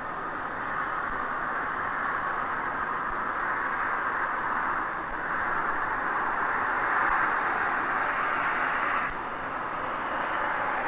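Steady hiss-like rushing noise that swells and eases slightly and drops a little about nine seconds in, with faint low ticks about every two seconds.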